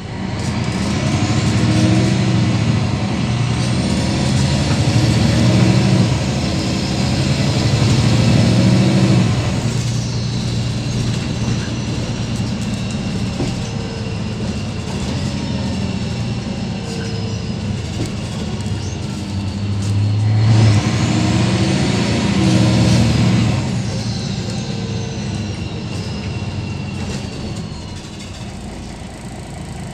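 Interior sound of a MAN NL263 low-floor city bus under way, its MAN D2866 LUH23 six-cylinder diesel pulling hard twice: from the start to about nine seconds in, and again about twenty seconds in. The engine note rises and drops back in steps as it accelerates, with a high whine climbing each time. Between and after, the engine settles to a lighter run as the bus cruises and slows.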